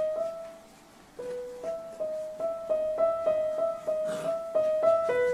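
Background piano music: a simple melody of single notes that mostly repeats one note. It breaks off briefly about a second in, then resumes at about three notes a second.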